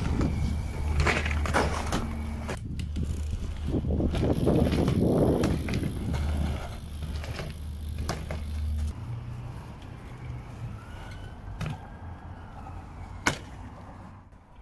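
BMX bike ridden on pavement: tyres rolling and scuffing, with sharp knocks as the wheels come down, over a steady low hum that stops about nine seconds in. A single loud sharp knock comes near the end.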